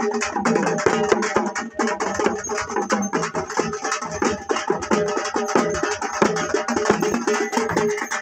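Parai frame drums beaten fast with sticks in a dense, unbroken rhythm of strokes, with a few steady pitched tones sounding beneath them.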